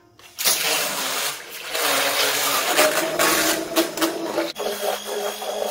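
Electric hand blender with a whisk attachment switched on about half a second in, whisking egg whites in a stainless steel bowl into meringue: a steady motor hum under the churning and splashing of the whites.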